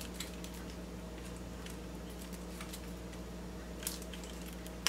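Faint clicks and crinkles of fingers working the foil and twisted wire cage on the neck of a sparkling wine bottle, with a sharper click near the end, over a steady low hum.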